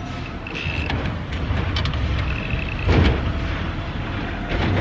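Cordless DeWalt drill driving screws to fasten a license plate, its motor whining in two short runs, with a loud thump about three seconds in and another near the end.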